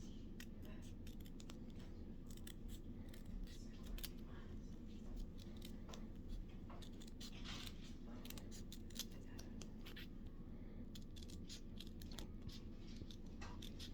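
Scissors snipping repeatedly through a decal sheet, cutting close around the decal's edge: a quiet run of short, irregular snips.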